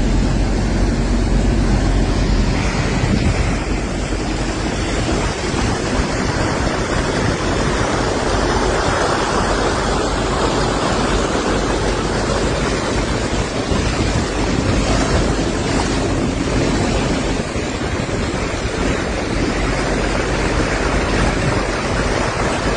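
Steady rushing of flowing floodwater, with wind buffeting the microphone.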